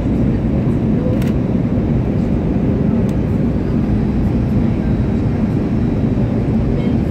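Steady low roar of jet engines and rushing air inside the cabin of an Airbus A319-112 with CFM56 turbofans, with a faint click about a second in.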